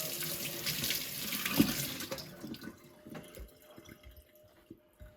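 Tap running into a sink, with a sharp knock about one and a half seconds in; the water stops a little past halfway, leaving scattered drips and small clicks.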